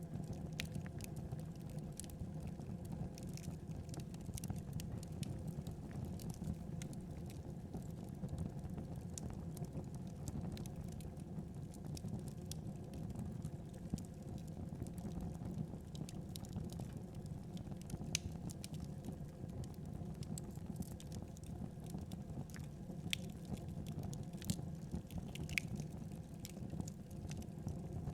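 Wood fire in a fireplace burning with a steady low rumble, broken by scattered sharp crackles and pops.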